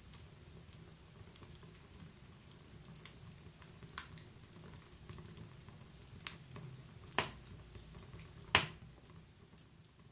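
Wood fire burning inside a stove: a steady low rumble of the flames with scattered crackles and a few sharp pops from the burning wood, the loudest pop near the end.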